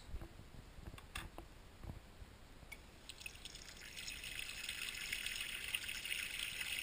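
A couple of light knocks as a cased phone is set down in a porcelain sink, then tap water running from about three seconds in and splashing onto the phone lying in the basin, growing fuller about a second later.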